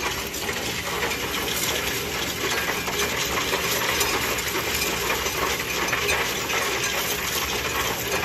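Coins clattering and sliding off the steel tray into a Coinstar coin-counting machine, with the machine's mechanism running steadily as it counts them.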